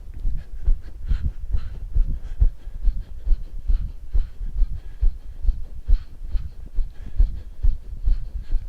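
Feet landing on the floor as a person hops from foot to foot: a steady rhythm of dull thuds, about two to three a second.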